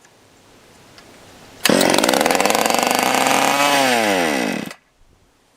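Stihl 020 AV two-stroke chainsaw engine catching about a second and a half in and running for about three seconds, then its pitch sags and it cuts out abruptly. It dies from fuel starvation: it gets gas at first and then stops getting it, which the owner takes for the saw starving for fuel.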